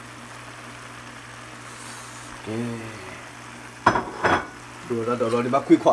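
Two sharp clinks of a utensil against a cooking pan about four seconds in, over a steady low hum, with short bits of voice before and after.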